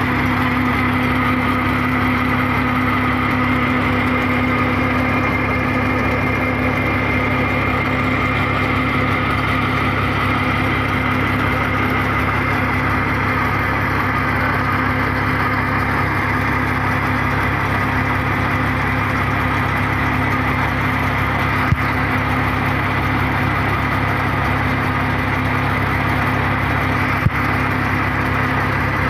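RD-60 core drilling rig running steadily, its engine-driven power pack giving a constant, even drone with a steady hum in it. Two brief sharp knocks stand out in the last third.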